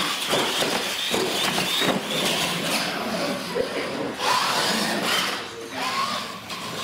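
Electric motors and gearboxes of radio-controlled monster trucks whining at full throttle as they race, the pitch rising over the first couple of seconds, with voices in the room.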